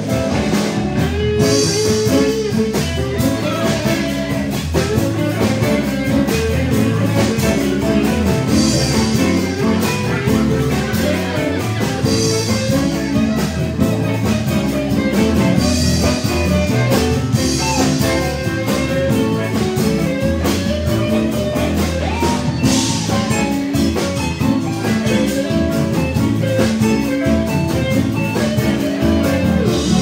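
Live blues band playing loudly: electric guitars over a drum kit.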